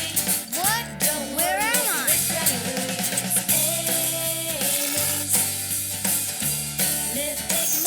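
Background music with a drum beat, a stepping bass line and gliding melodic notes.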